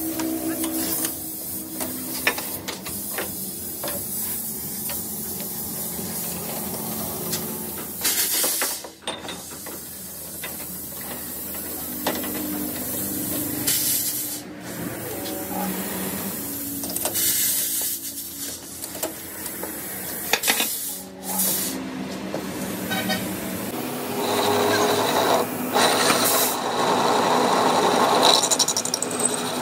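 Metal lathe running with a steady hum, broken off and resumed several times. From about three-quarters of the way through, the tool bit cuts a steel shaft spinning in the chuck, adding a harsh scraping noise that gets louder toward the end.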